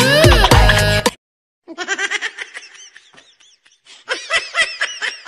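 Background music with a drum beat cuts off about a second in. After a short silence, laughter starts in quick repeated pulses.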